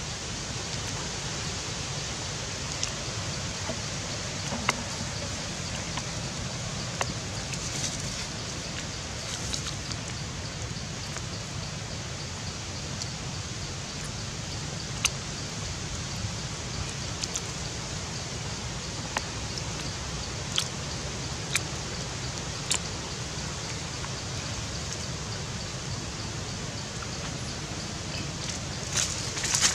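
Steady outdoor background hiss with scattered faint clicks and ticks, and a short cluster of clicks near the end.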